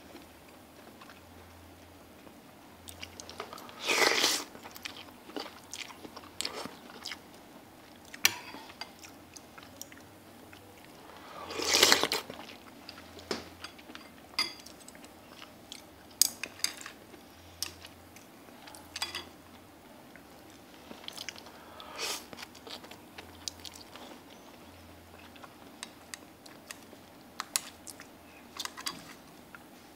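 A person chewing and biting while eating a bowl of noodle soup with shrimp, with many short scattered clicks and two louder, half-second noisy sounds about four and twelve seconds in.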